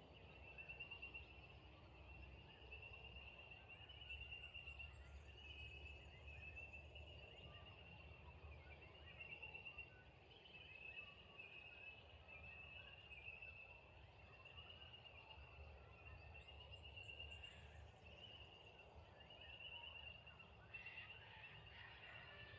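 Faint evening outdoor ambience: short, high trilling calls repeating about once a second from small animals (insects, frogs or birds), over a low rumble.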